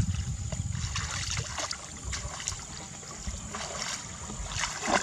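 Shallow water sloshing and splashing, with scattered small clicks and a low rumble, over a faint steady high whine.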